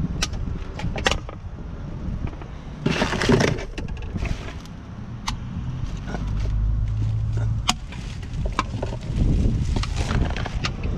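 Rummaging through curbside trash: sharp knocks and clinks of cans and containers being picked up and handled, with a loud rustling burst about three seconds in, over a low rumble.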